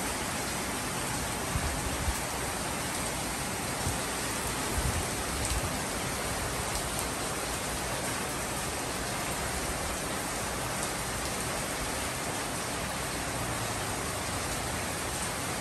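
Heavy rain pouring down steadily, a dense, even hiss of a downpour, with a few brief low thumps in the first six seconds.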